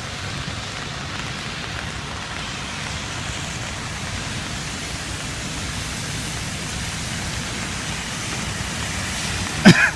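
Steady rain, an even hiss with no pauses. Near the end it is cut by a short, loud vocal sound.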